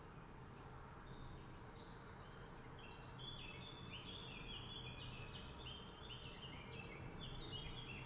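Many small birds chirping together, faint: short high calls overlapping, thickening from about two seconds in.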